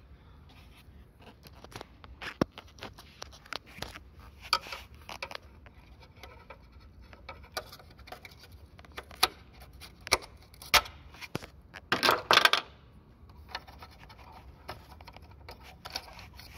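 Screwdriver prying off the clips that hold an ABS unit in a car's engine bay: scattered clicks, taps and short scrapes, with a louder half-second scrape about twelve seconds in.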